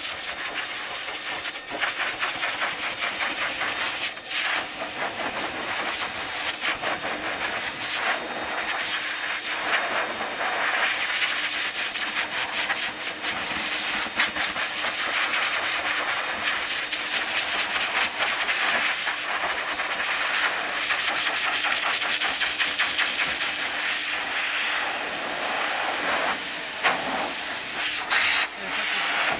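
High-velocity pet blaster dryer running, a steady rush of air with a motor hum underneath, swelling and fading as the nozzle moves over a large dog's coat.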